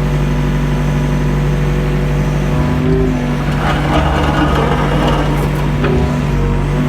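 Mini excavator's diesel engine running steadily under hydraulic load while its bucket works a large piece of old foundation wall. The engine note shifts about three seconds in, and a harsher, rougher noise rides over it for a couple of seconds in the middle.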